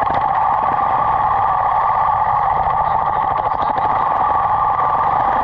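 Two-stroke engine of a 1980 Harley-Davidson golf cart running steadily, heard right at the muffler, shortly after being started on a shot of starting spray. It runs smoking heavily from the extra oil in its fuel mix.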